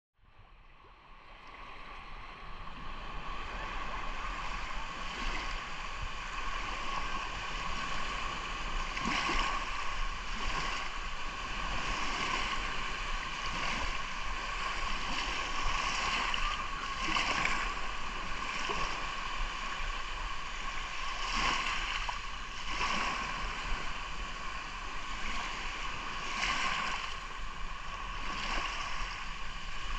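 Sea surf: waves washing onto the shore as a continuous rushing noise with irregular louder swells, fading in over the first two seconds or so.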